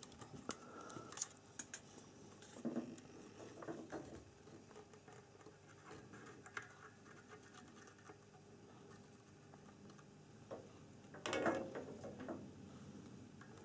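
Faint small clicks and scratches of fingers, wire and soldering iron against a fuse holder's solder lug while a wire is soldered on, with one short louder rustle about eleven seconds in.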